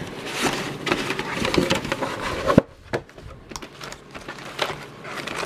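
A cardboard snack box being opened by hand: the tucked lid and flaps scrape and crackle against each other. There is a sharp snap about two and a half seconds in, then lighter rustling of cardboard and a paper card.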